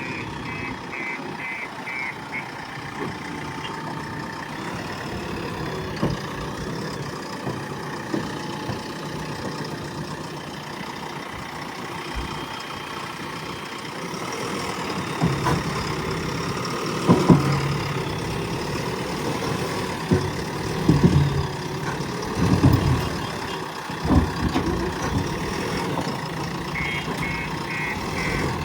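JCB 3DX backhoe loader's diesel engine running, with its reversing alarm beeping rapidly for the first couple of seconds and again near the end. From about halfway the engine gets louder, with several short surges as it works.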